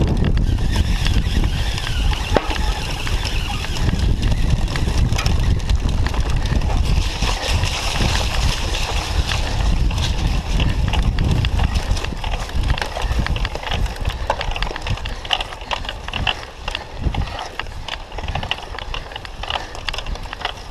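Cyclocross bike ridden hard over rough, muddy ground: wind buffeting and rumbling on the handlebar microphone, with the bike rattling and its tyres working the dirt. The sharp rattling clicks come thicker in the second half as the low rumble eases.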